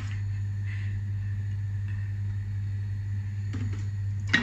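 Steady low hum, with a single sharp click near the end.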